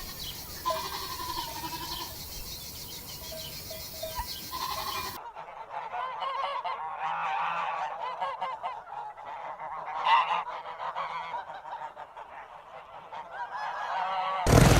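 A flock of domestic waterfowl calling together in a dense, overlapping chorus of honks, starting abruptly about five seconds in. Before that come fainter short, repeated bird notes.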